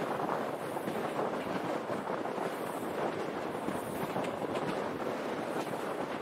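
Passenger train running along the track: steady wheel-on-rail noise heard through an open carriage window, with wind buffeting the microphone.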